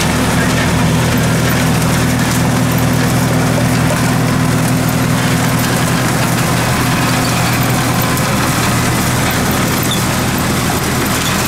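Farm machine's diesel engine running steadily at low, even revs.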